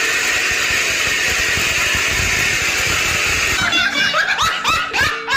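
Heavy rain falling in a steady hiss. Past the halfway mark, a quick run of short upward-sliding tones sounds over it.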